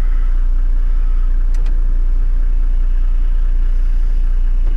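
Four-wheel-drive engine idling steadily, a constant low rumble, with a light click about a second and a half in.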